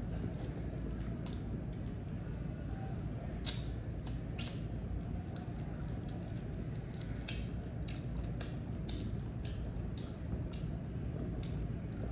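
Close-up eating sounds: crisp, irregular crunches and wet mouth clicks from biting and chewing slices of raw green mango, over a steady low hum.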